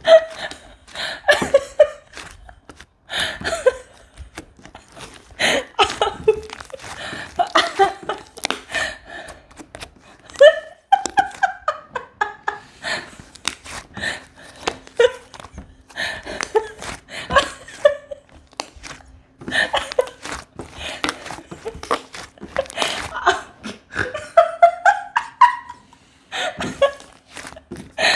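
A person laughing in repeated fits, with many short sharp clicks scattered throughout.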